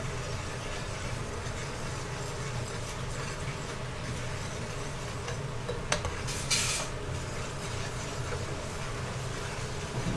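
Thickened plum sauce bubbling in a wok as a metal ladle stirs it, over a steady low hum, with one sharp tick about six seconds in and a brief scrape just after.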